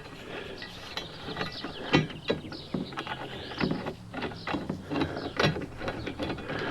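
Irregular metallic clicks and scrapes of a steel mounting bracket and screw being worked against a door hinge while trying to start the screw in its thread.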